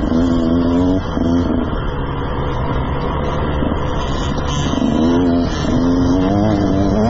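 GasGas 125 two-stroke motocross bike engine revving hard and dropping back several times as the throttle is worked, with a sharp fall in pitch about a second in.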